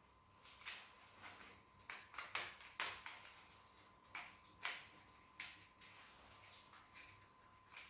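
Scattered light clicks and metallic taps of timing-chain parts, the chain and tensioner guides, being handled and fitted on the engine: about a dozen uneven taps, a few louder ones around two to five seconds in.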